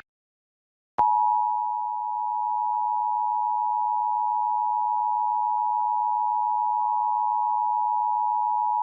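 Emergency Alert System attention signal, the two-tone alarm that opens an EAS message, here for a statewide Required Monthly Test. It starts sharply about a second in and holds steady for about eight seconds.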